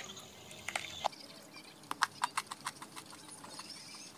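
Crunching of hard, crisp whole-wheat oat protein cracker sticks: a few light clicks, then a quick run of sharp crunches, about four or five a second, in the second half.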